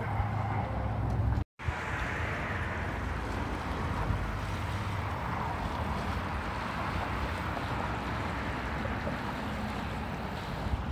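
Steady rush of a fast-flowing river running beneath a bridge, with a low wind rumble on the microphone. All sound cuts out for an instant about one and a half seconds in.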